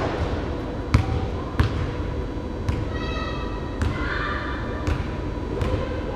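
Basketball bouncing on a hardwood gym floor as it is dribbled, several bounces about a second apart, ringing in the large hall.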